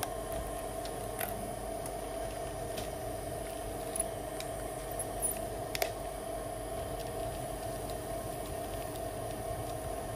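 Small electric motor of a handheld spinning-rod tool running with a steady hum, turning a thin rod across the OLED screen to clean off what is left of the touch panel. A few small clicks, the clearest about four and six seconds in.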